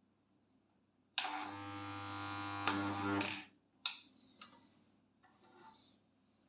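Homemade spot welder built from a microwave-oven transformer buzzing with a loud mains hum for about two seconds as it fires, then cutting off abruptly. A sharp click follows about half a second later.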